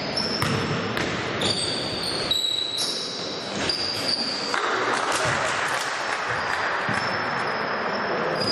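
Basketball bouncing on a hardwood court during play in a large hall, with short high squeaks from players' shoes.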